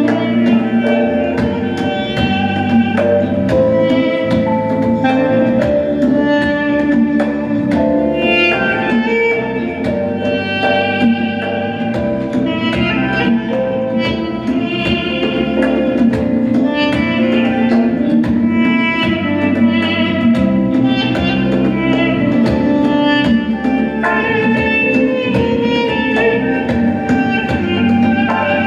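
Live ensemble music: an Armenian duduk, a double-reed woodwind, plays a melody of held, sliding notes over electronic keyboard chords and a steady beat on hand drums.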